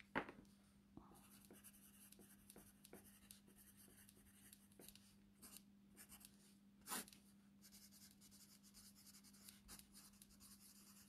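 Pen writing by hand on a paper sticky note: faint scratching strokes with small taps, one sharper tap about seven seconds in. A faint steady low hum lies underneath.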